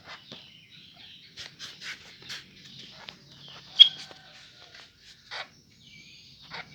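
White-rumped shama giving a string of short, sharp chirps and clicks, with one much louder sharp note about four seconds in and a couple of brief whistled notes near the end.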